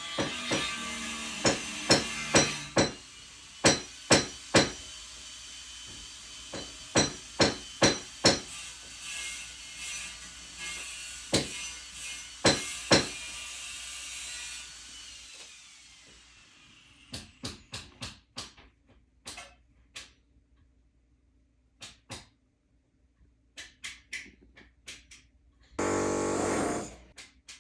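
Hammer blows struck at an uneven pace, each with a short metallic ring, over a steady hiss; after about fifteen seconds the hiss stops and fainter, scattered taps follow. Near the end a loud rough burst lasts about a second and a half.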